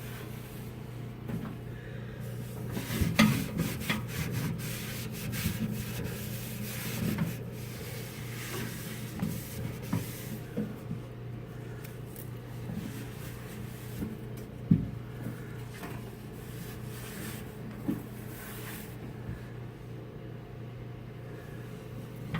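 A damp microfibre cloth rubbing and scrubbing across the inside of a microwave, with irregular wiping strokes and a few light knocks against the cavity walls, over a steady low hum.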